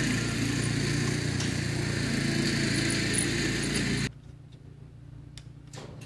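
A steady mechanical hum, like a small motor or engine running, which cuts off abruptly about four seconds in.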